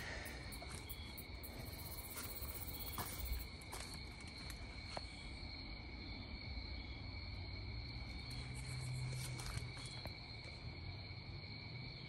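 Crickets trilling steadily in the background, with a few scattered footsteps on grass and dry leaves as the recordist walks.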